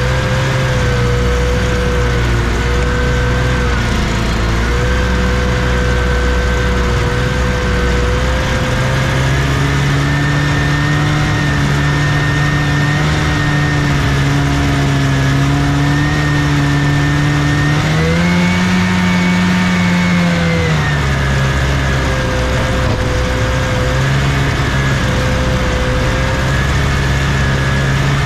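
1979 Scorpion Whip snowmobile's Cuyuna 440 two-stroke twin engine running under way, its note holding steady. Engine speed steps up about a third of the way in, climbs higher for a few seconds past the middle, then settles back.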